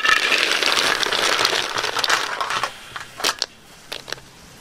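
Green mussels in their shells poured into an empty metal wok, the shells clattering and rattling against the metal for about two and a half seconds, then a few separate clicks as the last ones drop and settle.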